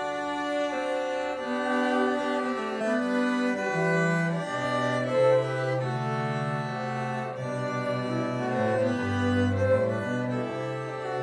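Cello quartet playing a hymn in four-part harmony: bowed cellos holding chords that change every second or so over a moving bass line.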